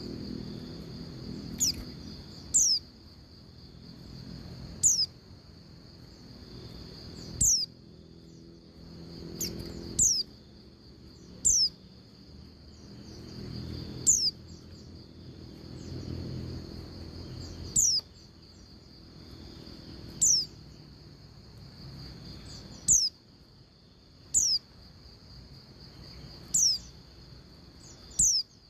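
Female white-eye (pleci) giving short, very high calls that sweep downward, singly or in quick pairs, every two seconds or so. This is the female's call to a male, used to prompt male white-eyes to sing. A steady high insect drone runs underneath.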